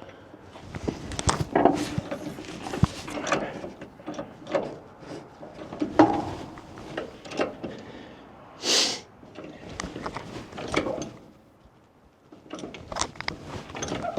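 Irregular clanks, clicks and knocks of hand work on metal parts, with a short hiss about nine seconds in.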